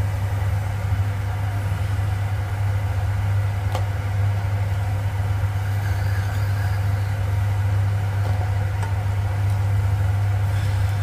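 A steady low hum runs throughout, with the faint sizzle of lentil fritters deep-frying in hot oil.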